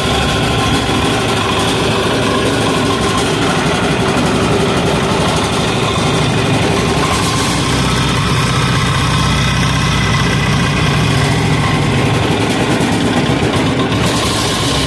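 186FA single-cylinder air-cooled diesel engine running steadily at about half throttle, on a trial of motor oil as its fuel. Its tone gets deeper about halfway through.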